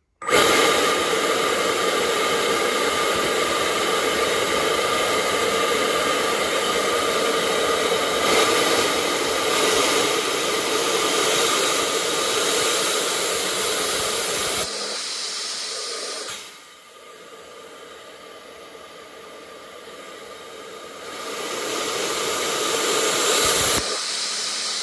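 Electric ducted fan (EDF) running at high speed, blowing through a 3D-printed mock-up turbine: a loud, steady rushing whine with fixed tones. About two-thirds of the way through it throttles down to a much quieter run, then builds back up near the end.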